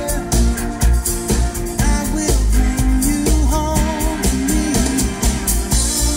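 A song with singing and a strong, steady bass beat, played on a car audio system with 12-inch JBL GT5-S12 subwoofers in a ported box.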